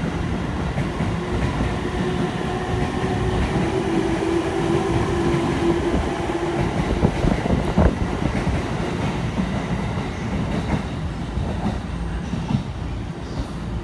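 Electric commuter train pulling out of a station and passing close by: a steady motor whine over the rumble and clatter of wheels on rail in the first half, a single sharp knock about eight seconds in, then the sound fades as the last cars go by.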